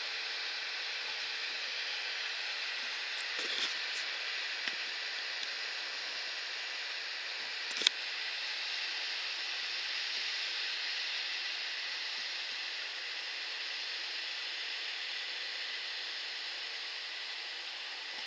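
Claas combine harvester working through barley, a steady hissing rush with a faint whine. Two short clicks, one about three and a half seconds in and a sharper one about eight seconds in.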